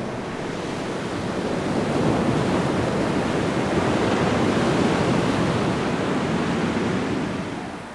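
Even rushing noise, like surf or wind, that swells over the first two seconds, holds, and dies away near the end.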